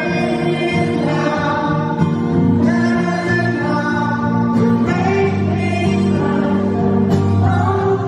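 Live song heard from within a concert hall audience: a man singing into a microphone over a strummed acoustic guitar.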